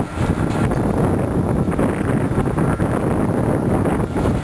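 Loud, steady wind rumble buffeting the camera microphone, over the muffled clatter of an excavator demolishing a building's roof and walls.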